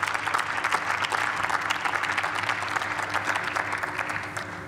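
Applause from members of parliament: dense, steady hand-clapping that starts to thin out near the end.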